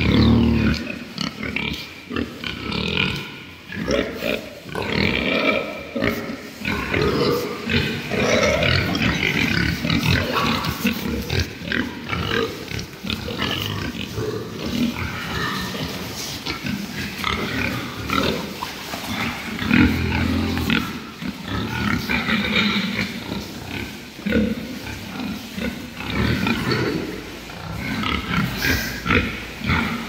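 A group of domestic pigs grunting, many short calls overlapping irregularly throughout.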